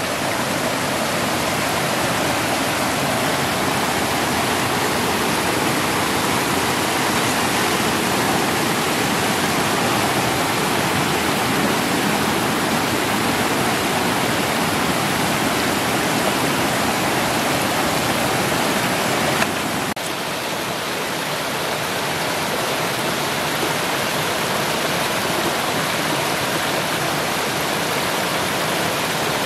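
Water pouring over a small rocky waterfall into a stream pool, a loud, steady rush. The sound changes slightly and drops a little about two-thirds of the way through.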